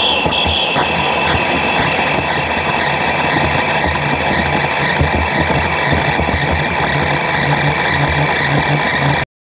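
Mazak manual lathe running under cut, turning a large 17-4 PH stainless steel workpiece. Steady machine noise from the spindle and gearing, with a high steady tone from the tool cutting the steel. The sound cuts off suddenly near the end.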